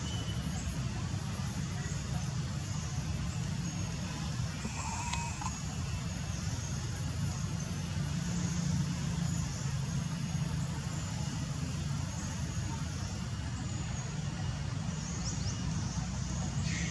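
A vehicle engine running steadily, a low rumble with no change in level, with faint high chirps above it.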